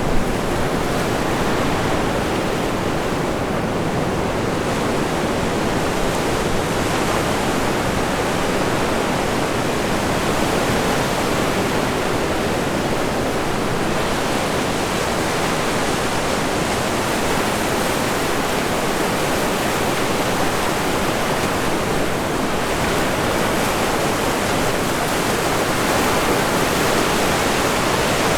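Pacific surf and strong wind on a beach: a steady, unbroken rushing wash of waves and wind, with a single thump right at the start.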